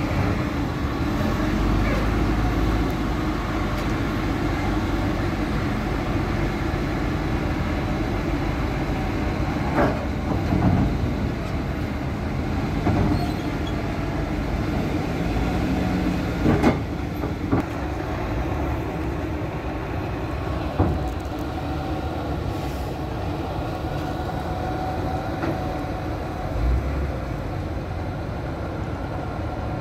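Diesel engine of an Isuzu tractor truck running steadily as it pulls a flatbed trailer across a barge's deck and off down its ramp, with a few sharp clanks along the way.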